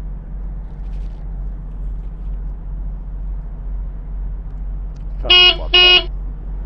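A vehicle horn gives two short honks in quick succession, about half a second apart, loud over a steady low hum.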